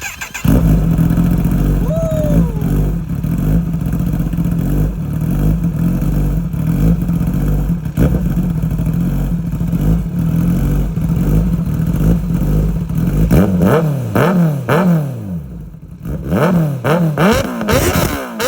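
Kawasaki ZX-10R's inline-four engine, fitted with an SC-Project exhaust, starting up and idling steadily. Over the last five seconds it is blipped through a series of quick revs, each rising and falling.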